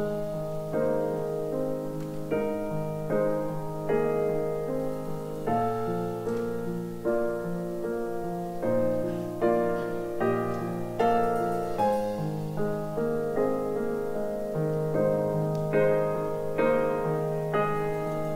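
Piano music: a melody of struck notes, about two a second, ringing over held bass notes.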